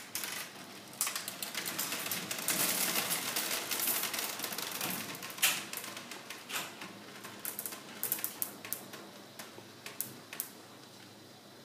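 Wooden marble clock rolling over to 12 o'clock: the gates trip and release a run of steel marbles that clatter and roll down the wooden tracks. A dense rattle of clicks fills the first few seconds, then thins out to scattered clicks and taps.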